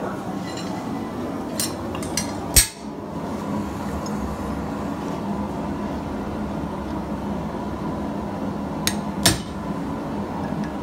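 A few sharp metal clanks of hot steel, tongs and a punch being handled on a steel anvil, the loudest about two and a half seconds in and two more near the end, over the steady noise of a propane forge running.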